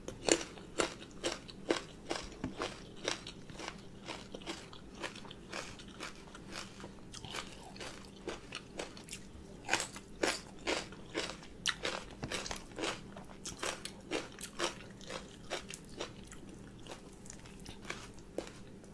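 Crisp crunching and chewing of raw Thai eggplant, close to the microphone: a string of sharp crunches, a few a second, busiest about ten seconds in.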